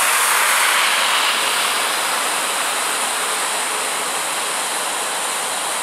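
Steady rushing of floodwater gushing out of a storm-drain pipe onto a flooded street. For the first second or so there is also the hiss of a car's tyres on the wet road.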